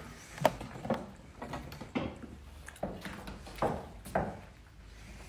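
A handful of irregular light knocks and thuds, about six spread over a few seconds, against a low background noise.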